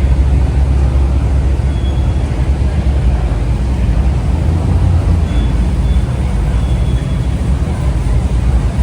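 Steady low rumble of car engines running, with a few faint, brief high-pitched tones over it.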